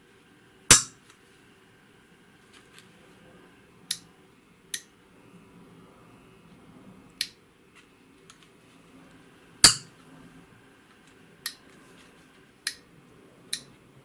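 Small metal toggle switches flipped by hand, setting a binary code: eight sharp, separate clicks, two of them much louder, about a second in and near ten seconds.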